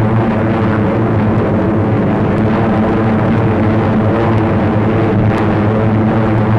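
Steady drone of many propeller aircraft engines flying in formation: an even hum that holds one pitch throughout, with a few faint clicks.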